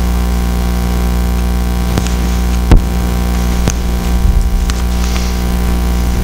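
Steady low electrical hum with a buzz of many even tones, with a few sharp knocks, the loudest about three seconds in.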